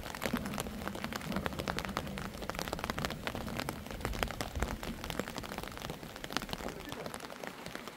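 Rain pattering close to the microphone: a dense, irregular run of small ticks, with a low rumble underneath.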